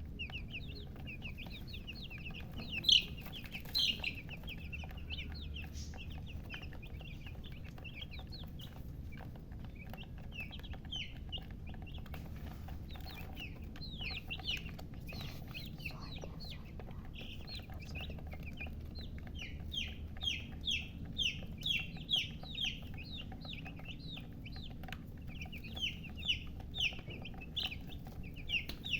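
A brood of baby chicks peeping, with many short high-pitched peeps in quick succession over a steady low hum. The peeping comes thickest in the second half.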